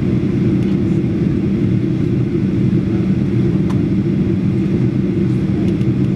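Steady low roar of engine and airflow noise heard inside the cabin of a Boeing 737-800 with its CFM56-7B engines, descending on approach with the flaps extended.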